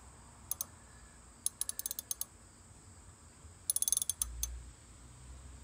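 Socket ratchet clicking in three short runs of quick clicks as it is swung back and forth, backing out the plastic oil drain plug on a Scag walk-behind mower's engine.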